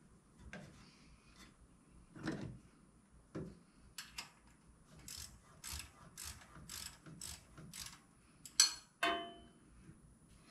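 Ratchet wrench worked in short strokes: a run of about eight quick ratcheting rasps, roughly two a second, after a few light knocks. Near the end comes a sharp clank with a brief ring, the loudest sound, then another knock.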